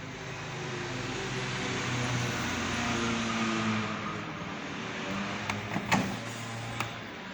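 Miele W 1713 washing machine running: a steady motor hum whose tones shift in pitch, over a noisy wash, with a few sharp clicks near the end.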